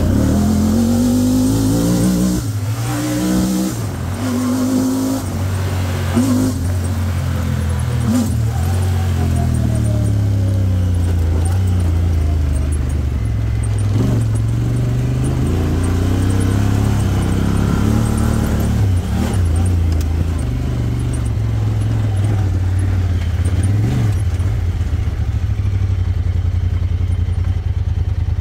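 Honda Talon 1000R side-by-side's parallel-twin engine running while driving, its revs rising and falling again and again. A few sharp knocks come through in the first ten seconds or so.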